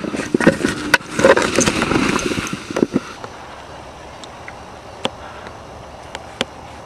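Wind and handling noise on an outdoor camera's microphone: about three seconds of rustling, buffeting and scraping with sharp knocks, then a steady faint hiss broken by two single clicks.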